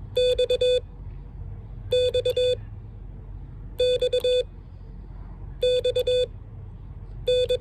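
Morse code sidetone from a Mountain Topper MTR3B transceiver keyed with a paddle, sending the letter X (dah-dit-dit-dah) five times, about once every two seconds, as a steady mid-pitched beep.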